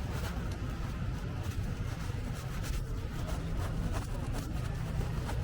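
Outdoor seafront ambience: a steady low rumble of traffic with scattered light clicks.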